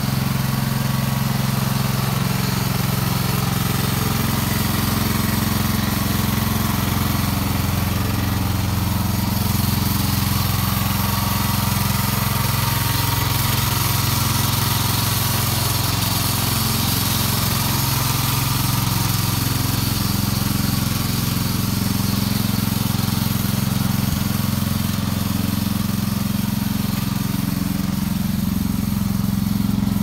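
Wheel Horse garden tractor's engine running steadily under load while it pulls a single-furrow plough through soil.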